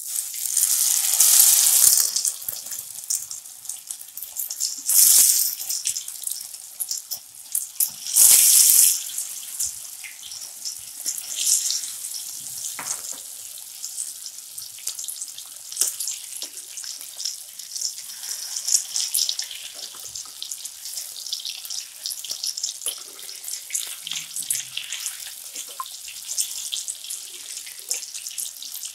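Egg-coated rohu fish pieces deep-frying in hot oil in a kadai: a steady crackling sizzle. It swells into loud surges about a second, five and eight seconds in as wet, egg-dipped pieces go into the oil.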